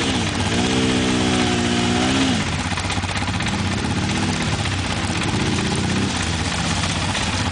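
Can-Am Outlander 650 XT ATV's Rotax V-twin engine driving out of shallow river water onto gravel: the engine note climbs in the first second, holds for about two seconds, drops away, then rises again a few seconds later.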